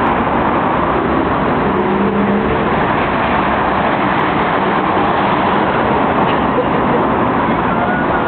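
Steady road traffic noise from passing and running vehicles.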